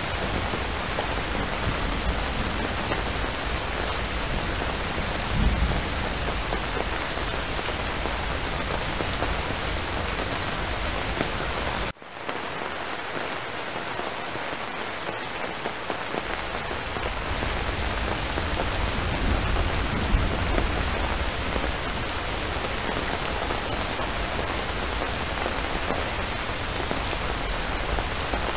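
Steady rain falling, with a short low rumble of distant thunder about five seconds in. Near the middle the sound cuts out for an instant and returns with less low end for a few seconds.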